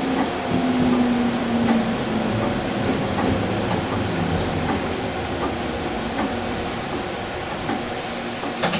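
Kagoshima City Tram 7500-type low-floor tram running, heard from inside the car: a steady rumble of wheels on the rails with a motor hum, and a sharp knock near the end.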